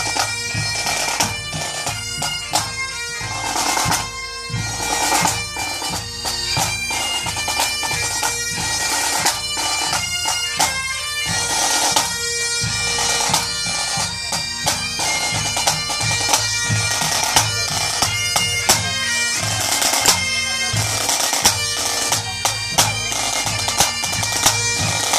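Great Highland bagpipes playing a tune over their steady drones, with drum strokes beating along.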